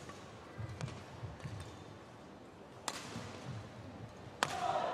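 Badminton rally: sharp racket strikes on the shuttlecock, the loudest two about three and four and a half seconds in, with players' shoes thudding on the court between shots. Crowd noise swells near the end.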